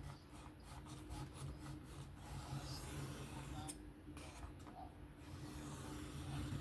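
Knife edge scraping on an Atoma 400 diamond sharpening plate during freehand sharpening: a series of short strokes, then longer scrapes, with a light click a little past halfway.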